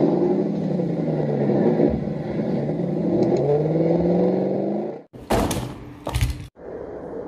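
Dubbed-in engine sound effect revving up and down over and over, its pitch rising and falling in repeated sweeps. About five seconds in it cuts off abruptly and gives way to two loud, harsh noisy rushes.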